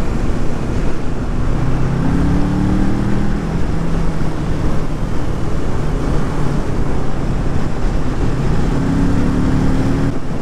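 Kawasaki Ninja 650's parallel-twin engine running under way, with heavy wind noise on the microphone. The engine note rises in pitch twice, about two seconds in and again near the end.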